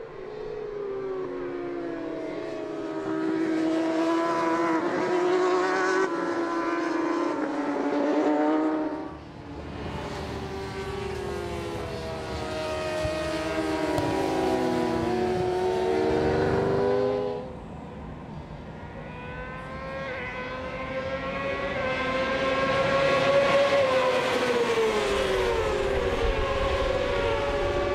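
Several racing motorcycles at speed on a circuit, their engines revving high with the pitch repeatedly climbing and dropping. The sound briefly dips twice, about nine and seventeen seconds in.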